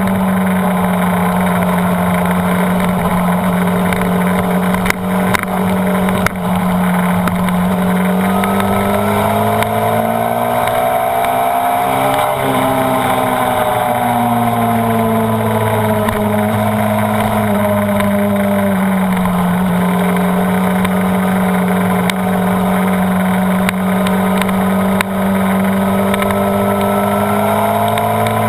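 Honda CBR929RR's 929 cc inline-four engine running under way on track. The revs climb about a third of the way in, peak near the middle, ease down gradually, and climb again near the end.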